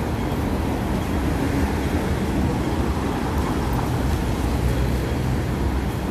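City street traffic noise at a busy intersection, a dense steady rumble of engines and tyres, with a minivan's engine running close by as it turns past, its low hum strongest about two-thirds of the way in.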